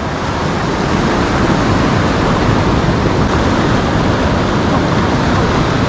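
Steady ocean surf with wind buffeting the microphone.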